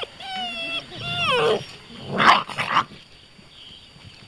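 Six-week-old Beauceron puppies whining and yelping: a held whine, then a long yelp that falls in pitch, followed about two seconds in by two short rough barks, the loudest sounds.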